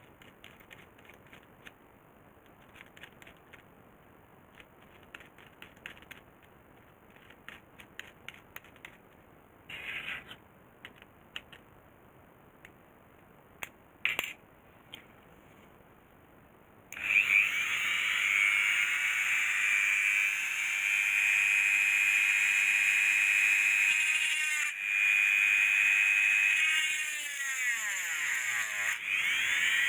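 Scattered small handling clicks, then about two-thirds of the way in a small electric motor starts suddenly with a loud, high-pitched whine. It holds steady, then slows down near the end with its pitch falling.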